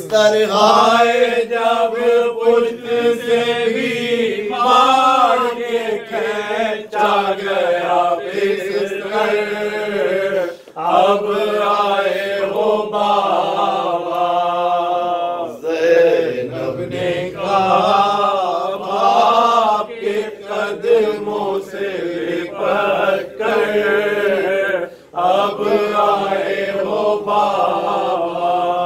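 Men's voices chanting a mournful noha, a lament for the Shia mourning gathering, led by one voice on a microphone with other men singing along. It runs in drawn-out, wavering phrases of a few seconds, with short breaks for breath.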